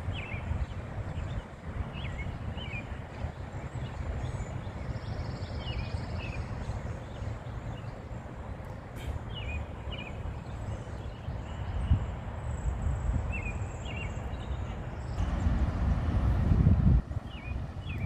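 Outdoor ambience: wind rumbling on the microphone, with small birds chirping now and then. About three-quarters of the way through, a louder rumble swells for a couple of seconds and then cuts off.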